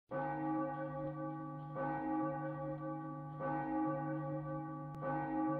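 A deep bell tolling, struck four times about every one and a half to two seconds, each stroke ringing on into the next.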